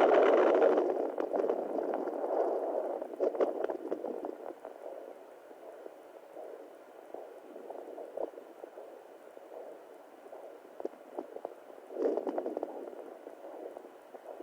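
Handheld fetal Doppler's speaker giving out whooshing, gurgling noise with scattered clicks. It is loudest at the start, fades through the middle and swells again about twelve seconds in.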